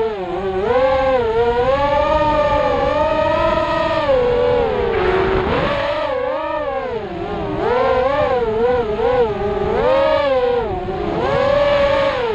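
Thrust-UAV Riot 250R racing quadcopter's motors and propellers whining, the pitch rising and falling continually with the throttle.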